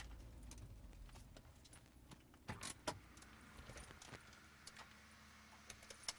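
Faint footsteps and a few small clicks and taps over a low background hum, with two clearer taps about two and a half and three seconds in.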